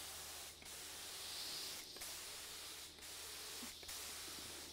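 Paint sprayer hissing as a light mist coat is sprayed on in passes. The hiss is broken by brief gaps about four times.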